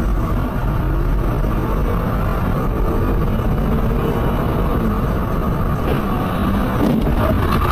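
Steady vehicle noise: engine and tyre rumble from a car on the road, with faint light ticks near the end.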